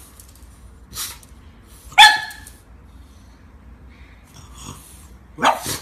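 A pug barks once, sharp and short, about two seconds in, at a rubber chicken toy. Softer huffs come about a second in and again near the end.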